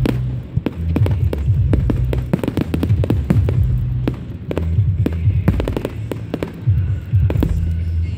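Display fireworks going off in rapid succession: many sharp bangs and crackles of aerial shells bursting, several a second, with no pause.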